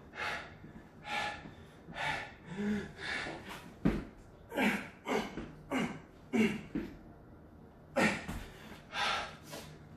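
A man breathing hard from exertion during burpees: short, loud gasping breaths, a bit more than one a second, with a few grunts among them. A single thump about four seconds in as he drops onto the rubber exercise mat into a push-up.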